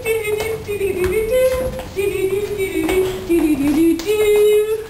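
A single high voice singing a wordless, wandering tune, holding notes and sliding between them, with scattered taps of footsteps on a hard floor.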